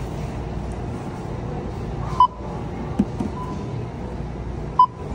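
Two short electronic beeps, about two and a half seconds apart, over a steady low background hum.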